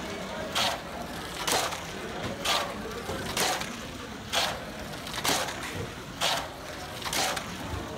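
Hot Wheels Sizzlers car running laps of a banked Fat Track oval, its small electric motor and wheels whirring past about once a second, eight brief passes in all.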